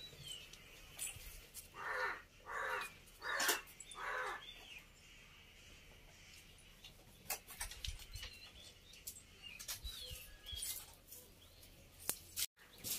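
A crow cawing four harsh times in quick succession, with small birds chirping faintly.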